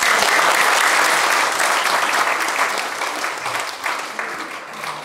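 Audience applauding, loudest at first and slowly dying away.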